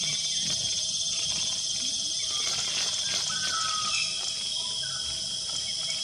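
Steady chorus of insects shrilling, with a few short bird calls around the middle.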